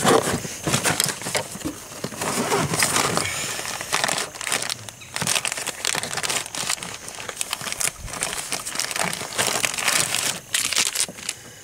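Plastic soft-bait packets crinkling and rustling irregularly as they are handled and sorted through.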